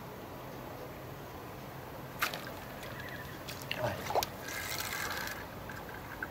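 Fishing tackle handled at the water's edge: a sharp click about two seconds in, then a light splash on the river surface just before four seconds.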